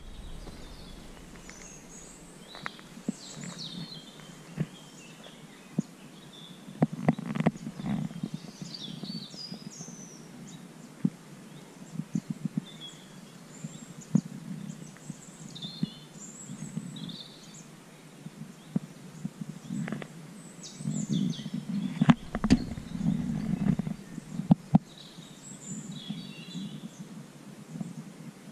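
Small birds chirping, with short calls scattered throughout. Sharp knocks and clicks come and go, along with stretches of low rumbling noise.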